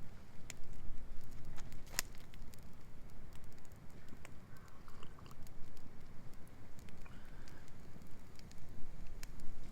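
Wood campfire crackling, with scattered sharp pops and one louder pop about two seconds in.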